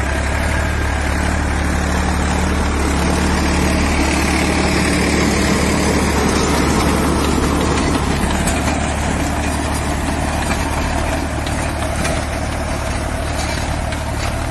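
Solis Yanmar 5015 4WD tractor's diesel engine running steadily under heavy load at about 1600 RPM, driving a 7.5-foot rotavator that churns through hard, wet black soil and thick grass. It grows a little louder about halfway through.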